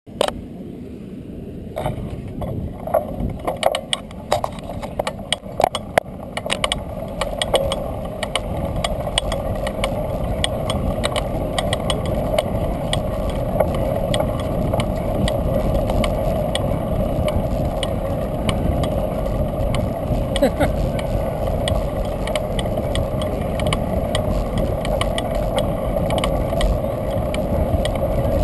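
Bicycle rolling along a concrete pier deck: a steady rolling rumble, with sharp clicks and ticks during the first several seconds.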